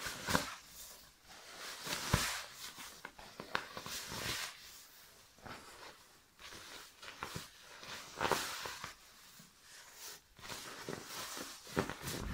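Nylon shell of an Aegismax ultralight down sleeping bag rustling and swishing in irregular bursts as it is crammed by hand into its stuff sack.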